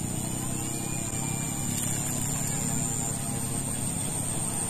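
Steady engine drone with no change in pitch, under a constant high insect whine.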